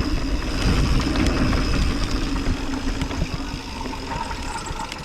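Mountain bike descending a dirt downhill trail: a heavy, rough rumble from the tyres on the ground and wind on the microphone, with scattered clattering knocks from the bike.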